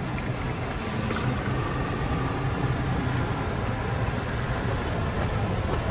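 Steady low rumble of road traffic on a nearby road.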